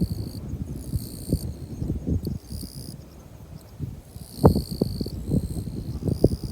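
Insects trilling outdoors in repeated high buzzing bursts, each lasting about half a second to a second, over an uneven low rumble with dull thumps.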